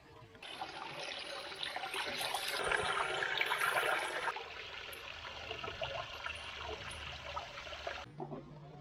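Rushing, splashing river water, starting suddenly about half a second in, loudest for a couple of seconds in the middle, and cutting off abruptly near the end.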